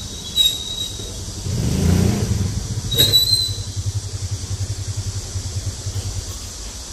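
A motor vehicle's engine nearby: a low rumble swells about two seconds in, then settles into a low throbbing of about six pulses a second. Two short high squeaks come at about half a second and three seconds in.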